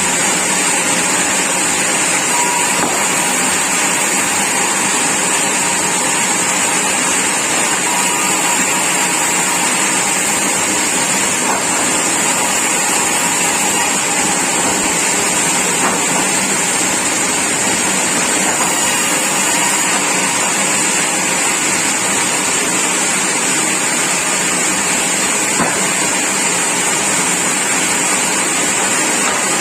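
Sawmill machinery running steadily: a loud, even mechanical noise with a high hiss that does not pause or change.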